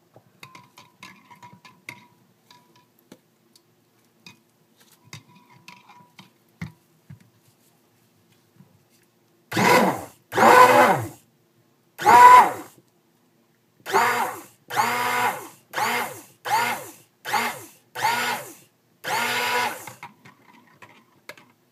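Stick blender pulsed in about eleven short bursts of a second or less, each a steady motor whine, mixing lye solution into the oils to bring cold-process soap batter toward trace. Before the bursts there are only faint clinks and handling noises from the mixing.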